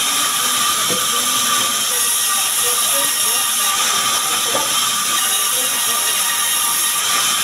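Sawmill band saw running and cutting small sengon (albizia) logs into boards: a steady, high hiss with a thin, constant whine.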